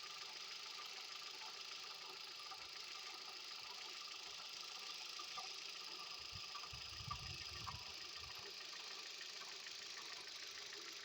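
Hyundai Solaris engine idling with a steady grinding and knocking noise from a worn engine coolant water pump that needs replacing. There is a brief low rumble about seven seconds in.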